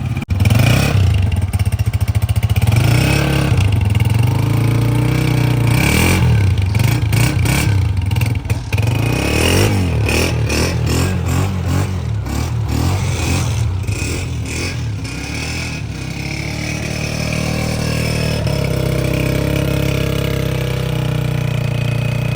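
2025 Honda CG125's single-cylinder four-stroke engine being revved repeatedly, rising and falling several times. For the last few seconds it settles back to a steady idle.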